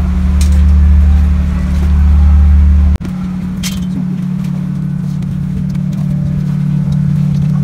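Steady low machine hum inside an air-conditioned sleeper train carriage. The hum shifts abruptly about three seconds in as its deepest part drops away, with a few light clinks and knocks over it.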